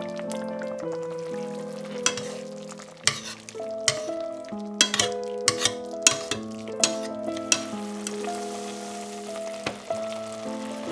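Dark soy and mushroom sauce sizzling and bubbling as it reduces around braised pork leg in a stainless steel sauté pan, with a run of sharp clinks and taps in the middle. Soft background music with held notes plays throughout.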